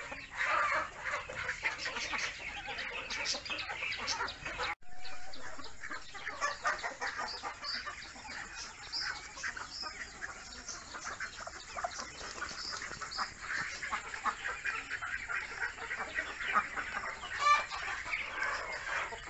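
A flock of Muscovy ducklings peeping continuously, many short high calls overlapping, with a brief break about five seconds in.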